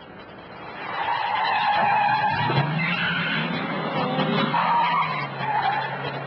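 Car tyres skidding and squealing, swelling in about a second in, with a wavering squeal and an engine's steady low drone joining underneath about two and a half seconds in.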